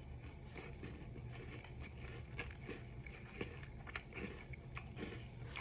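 Close-up chewing of a mouthful of cookies and cereal with ice cream: irregular crunches and wet mouth clicks, with no set rhythm.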